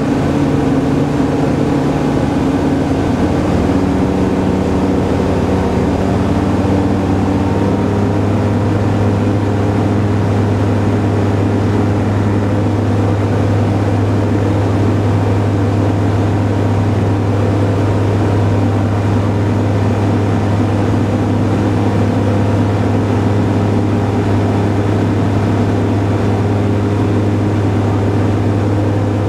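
Kitfox light airplane's engine and propeller droning steadily in flight, heard from the cockpit. The tone of the drone changes about three to four seconds in, then holds steady.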